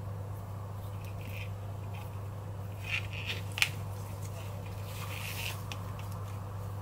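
Close handling sounds of hand sewing: a needle and waxed thread worked through leather and woven webbing by hand, giving light rustles and small clicks, with one sharp click about three and a half seconds in. A steady low hum lies underneath.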